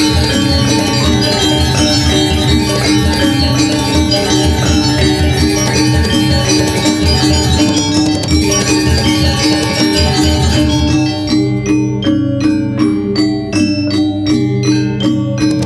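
Balinese gong gamelan playing: rows of bronze gangsa metallophones struck with wooden mallets in fast, dense interlocking patterns over sustained ringing tones. About eleven seconds in the texture thins to separate, spaced strokes.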